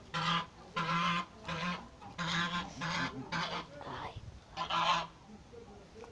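Geese honking: a run of about eight short honks, one every half to two-thirds of a second, stopping about five seconds in.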